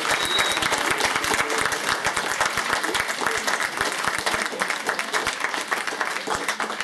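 Audience applauding: many hands clapping in a dense, steady patter that eases a little toward the end.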